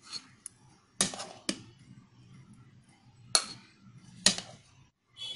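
Metal spoon clinking against a china plate and bowl while curd-soaked vadas are spooned onto the plate: about six sharp clinks at uneven intervals.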